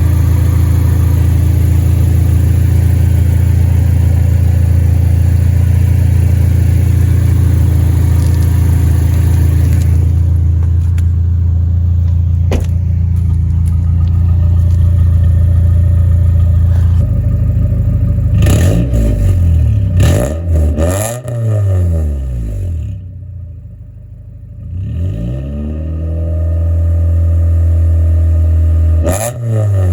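Honda Accord F23 2.3-litre inline-four running through 4-2-1 headers, a new catalytic converter and an aftermarket cat-back exhaust: a steady idle for the first half, then several quick revs with the pitch rising and falling, and one more rev near the end. The exhaust note is still a little raspy.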